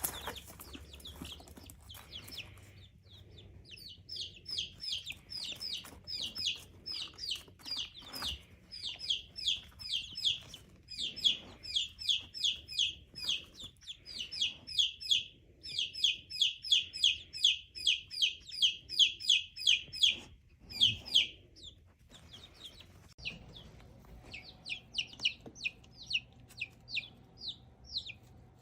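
Young Buff Orpington chicks giving rapid high trilling chirps, about five a second in long runs with short breaks, louder in the middle. It is the nighttime sound the keeper takes, probably, for a young cockerel's homing call gathering the chicks into one spot to settle for sleep.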